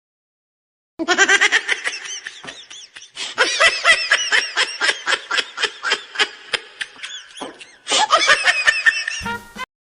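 High-pitched laughing sound effect: a rapid run of laugh pulses, each rising and falling in pitch. It stops for a moment just before eight seconds in, then resumes, and ends with a short burst of noise.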